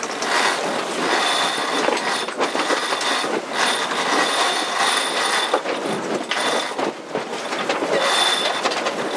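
Sheet winches on a sailing yacht being cranked hard with winch handles to haul in a sheet. The pawls ratchet in rapid clicks, with a high squealing whir in stretches as the crew winds.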